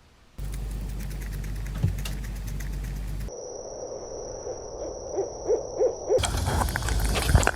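Owl hooting: a short series of low hoots in quick succession, about two thirds of the way in, between stretches of rumbling and clattering noise.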